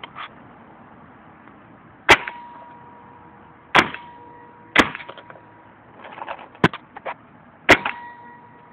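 VL Triton 2 paintball gun firing five single shots at irregular intervals, each a sharp pop. A faint, thin tone lingers after several of the shots, and a few smaller clicks come just before the fourth.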